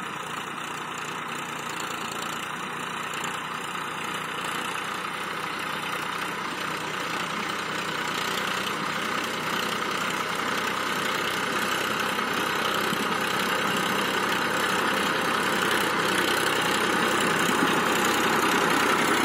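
Massey Ferguson 1035 tractor's three-cylinder diesel engine running steadily under load while it pulls a disc plough through dry soil, growing gradually louder.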